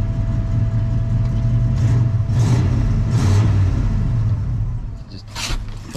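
Turbocharged 302 V8 engine idling steadily, with a thin steady whine over it that stops about two-thirds of the way in. The engine sound drops in level near the end, with a short clatter.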